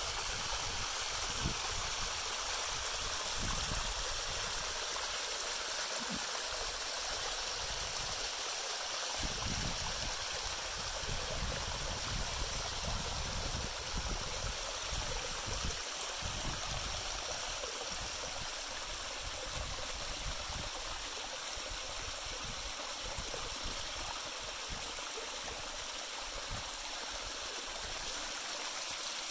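Walupt Creek, a small mountain creek, splashing and trickling down a series of little rocky cascades: a steady rushing of water.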